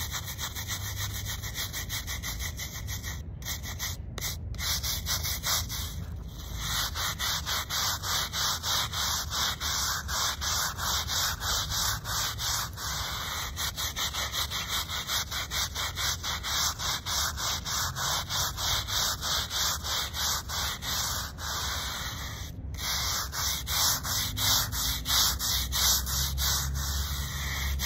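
Hand-held bristle scrub brush scrubbing the face of a stone headstone in quick, rhythmic back-and-forth strokes, stopping briefly a few times.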